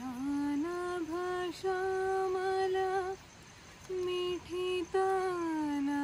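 A woman humming a slow tune unaccompanied: held notes that slide from one pitch to the next, with a short pause about three seconds in.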